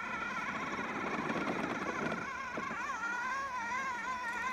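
Kobalt 40V Max brushless self-propelled battery lawn mower running while it pulls itself up a slope: a steady electric motor whine over a rushing noise. The whine wavers in pitch briefly about two to three seconds in.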